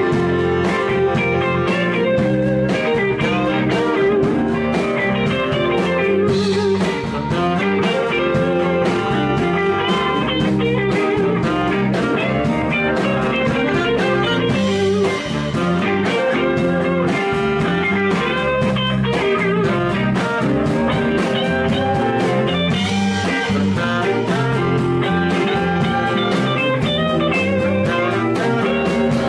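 Live blues-rock band playing, with electric guitars over a drum kit.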